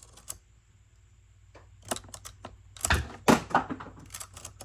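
A new chainsaw chain being unpacked and handled: irregular runs of small metallic clicks and rattles, loudest in a dense clatter about three seconds in.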